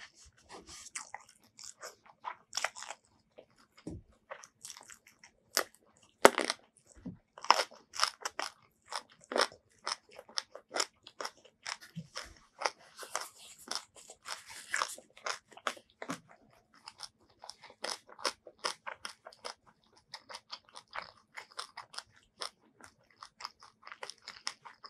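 Chewing and crunching of crisp food close to the microphone: a dense, irregular run of crackly bites and mouth clicks.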